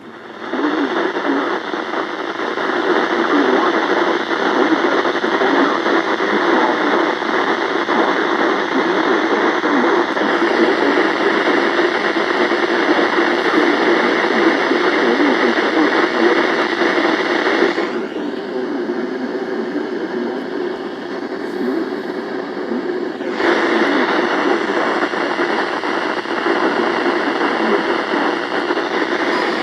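Radio receiver hiss, a loud, steady static. It thins out for about five seconds a little past the middle, then comes back.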